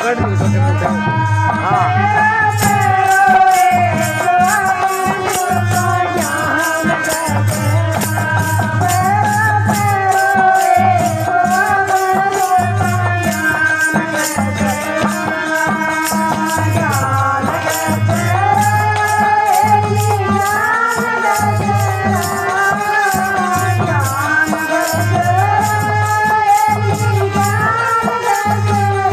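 Devotional bhajan: a woman singing a wavering, ornamented melody over a steady low drum beat, with a fast, even rattle-type percussion joining about two seconds in.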